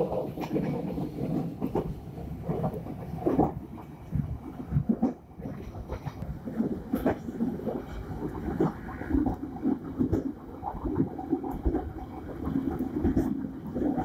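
Passenger train running along the track, heard from inside its rear vestibule: steady running noise with irregular clattering knocks from the wheels and carriage.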